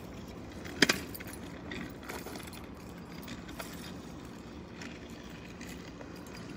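Kick scooter rolling over pavement, with a sharp double knock about a second in and scattered light clicks and rattles after it.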